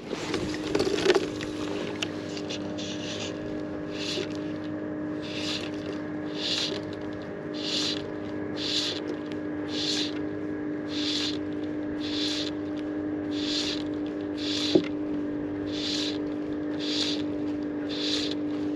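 A motorboat engine drones steadily at one pitch in the distance. Over it, fly line is stripped in by hand in short hissing pulls about once a second, retrieving a surface fly.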